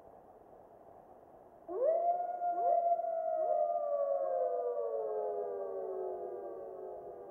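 Wolf howling: about two seconds in, a long howl rises sharply to a high held note, then slowly sinks in pitch and fades. Several shorter rising howls start over it about once a second at first.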